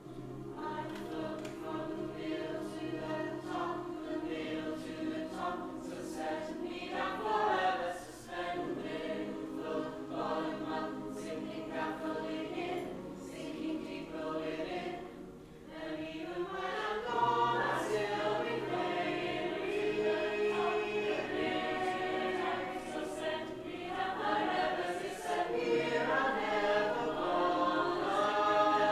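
A group of voices singing together in choral harmony, holding long notes and sliding between them, with short breaks between phrases.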